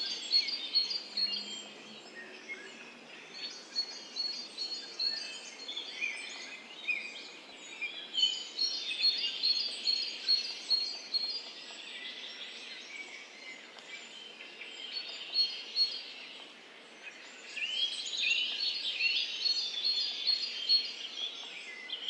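Small garden birds chirping and calling: runs of short, rapidly repeated high chirps from several birds at once, with some sliding notes near the end.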